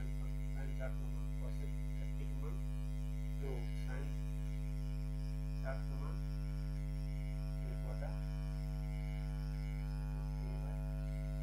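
Steady electrical mains hum: a low drone with several higher tones stacked above it. Faint brief sounds come every second or two.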